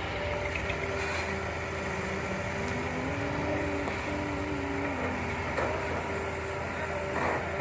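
Hitachi hydraulic excavator working: its diesel engine runs steadily under a pitched hydraulic whine that rises about three seconds in and drops back near five seconds. A couple of brief knocks come in the second half.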